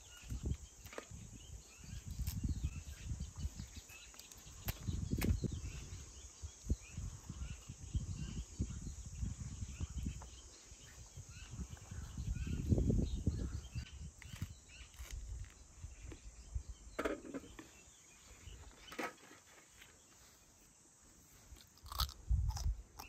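Fresh green herb leaves being picked and snapped off their stems by hand: scattered crisp crunches and rustles, with intermittent low rumbles.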